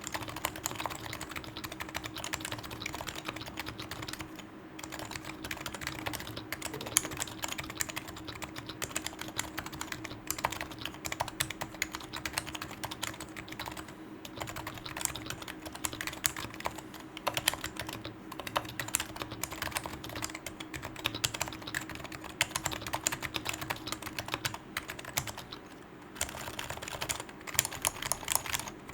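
Continuous typing on a Topre keyboard: a Sho66 custom case with a brass plate, Leopold FC660C rubber domes with conical springs, Krytox-lubed housings and stock PBT keycaps, giving a rapid, irregular run of key presses. There is a short pause a few seconds in and another near the end.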